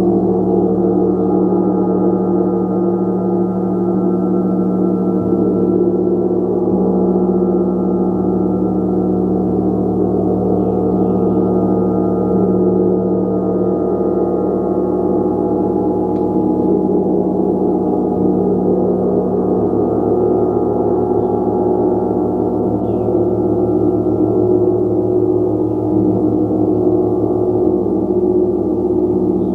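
A gong played continuously in a sustained, dense wash of overlapping tones, building a steady shimmering drone with no single strikes standing out.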